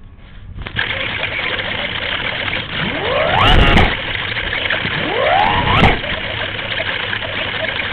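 The electric motor and propeller of a Multiplex Easy Glider sailplane are briefly run up and back down twice, each a rising then falling whine lasting about a second, about three and five and a half seconds in, over a steady hiss.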